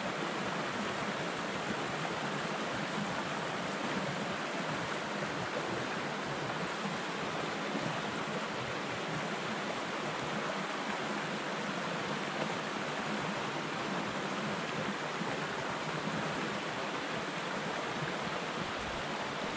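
Small rocky brook running over stones in a steady rush of flowing water.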